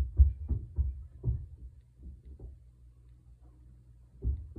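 Low, dull thumping from the apartment upstairs, heard through the ceiling, about four thumps a second over a low hum. It dies down for a couple of seconds midway and comes back strongly near the end.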